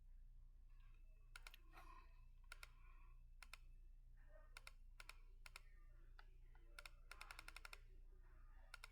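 Faint, scattered clicks of a computer mouse and keyboard, with a quick run of keystrokes about seven seconds in, over a low steady electrical hum.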